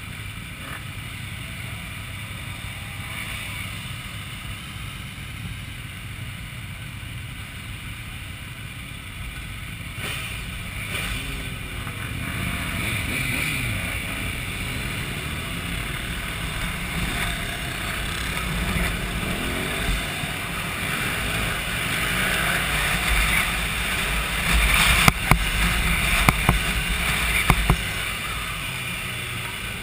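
Several motorcycle engines idling together at a stop, then revving and pulling away, the engine note rising and falling with gear changes as the group gets under way. The sound grows louder as the riding starts, and a few sharp knocks come near the end.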